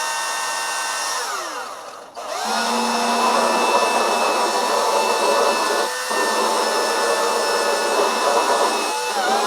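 Electric belt sander running, winding down about a second in, then started again and run at speed with rasping sanding noise, winding down once more near the end. The belt is not tracking right.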